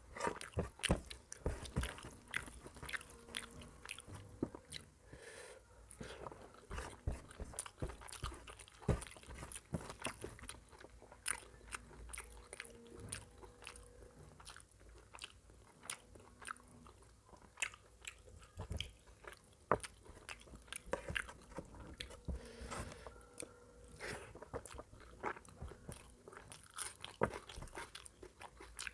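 Close-miked chewing and wet mouth smacks of a person eating rice and mutton curry, a dense, irregular run of short clicks.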